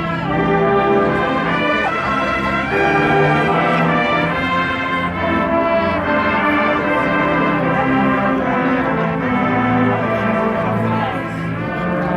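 Marching band playing, with the brass section carrying sustained chords.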